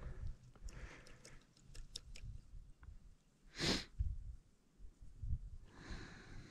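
Faint clicks and handling noise from a small ice-fishing rod and reel being worked to free a snagged lure. About halfway through comes one short, sharp breath through the nose.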